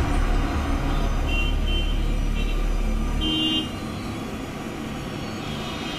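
Urban traffic noise with a few short car-horn toots, over a deep rumble that falls away a little past halfway.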